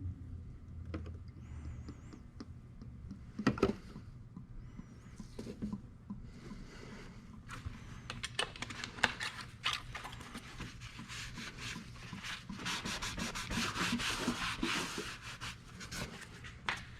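Rubbing and scraping from hand work on engine parts, with scattered light clicks and knocks; the rubbing is densest for a few seconds near the end.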